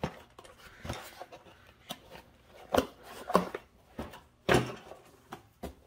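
Cardboard packaging being handled: scattered knocks, scrapes and rustles of boxes being set down and moved, the loudest about four and a half seconds in.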